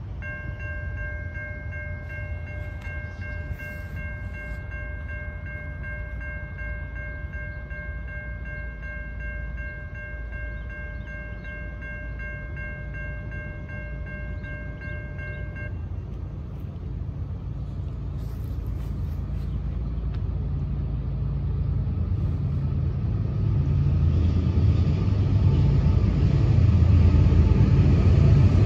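Approaching Norfolk Southern freight locomotive sounding its air horn, a multi-note chord held steady for about sixteen seconds. Once the horn stops, the low rumble of the train grows steadily louder as it nears.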